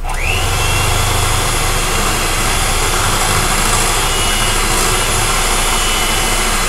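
Handheld electric mixer switching on with a quick rising whine, then running steadily as it blends pumpkin pie filling in a bowl.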